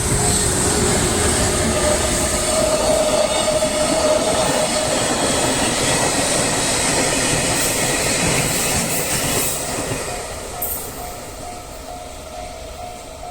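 Freight train hauled by an EF210 electric locomotive passing over a level crossing: loud wheel and rail noise for about ten seconds, then fading. The crossing's warning bell rings in a steady repeating pattern and comes through again near the end as the train noise falls away.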